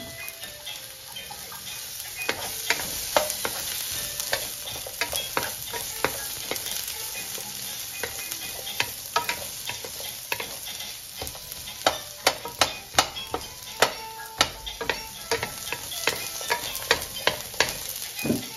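Sliced red onion and ginger sizzling in a nonstick wok while two wooden spatulas stir and toss them, clicking and scraping against the pan. The spatula taps come quick and loud in the second half.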